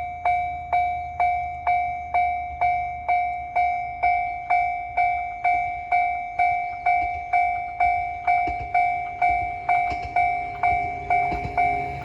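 Japanese railway level-crossing warning bell ringing: a single-pitched electronic ding repeating steadily about twice a second. A low rumble builds over the last few seconds as a train approaches.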